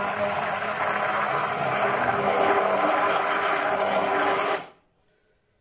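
Hand-held immersion blender running steadily in a saucepan of béchamel sauce, then switched off, the noise cutting off suddenly near the end.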